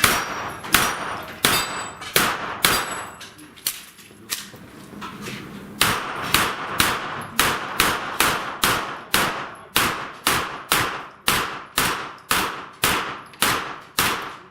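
A rapid string of gunshots at steel plate targets, with metallic clangs of hits. The shots come in quick groups, ease off for a couple of seconds about a third of the way in, then run on steadily at about three a second until just before the end.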